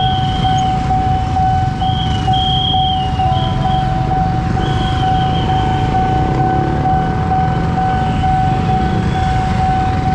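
Railway level-crossing warning bell ringing as a steady electronic tone that pulses evenly about twice a second, over the low idling of waiting motorcycle engines. A high whistling tone sounds on and off during the first half.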